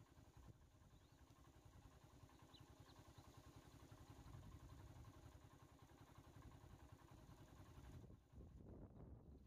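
Near silence: the faint low rumble of an idling vehicle engine, with a few faint high chirps.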